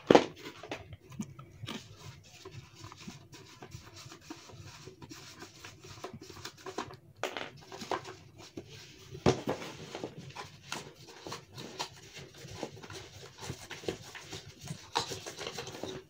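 Cardboard packaging being handled by gloved hands: scattered rubbing, scraping and small clicks, with a few sharper knocks, the loudest about nine seconds in.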